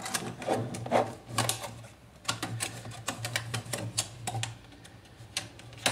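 Stiff transparent plastic packaging being pried open and pulled off a small speaker box: irregular sharp crinkles and clicks of the plastic under the fingers.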